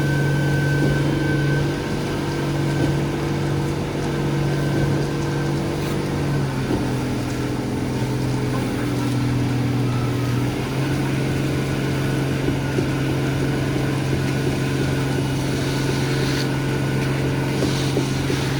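A concrete truck's diesel engine running steadily at a raised speed. Its pitch dips a little about six seconds in and comes back up after about four seconds.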